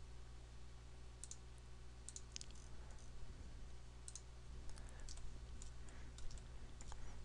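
Faint, scattered clicks of a computer mouse, some in quick pairs, over a steady low hum.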